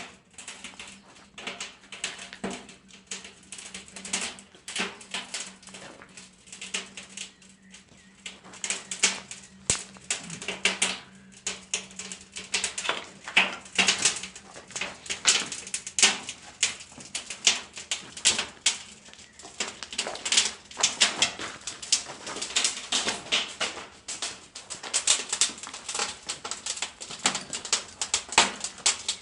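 Wood fire crackling in a fireplace: a steady run of irregular sharp pops and snaps, with a faint low hum underneath in the first half.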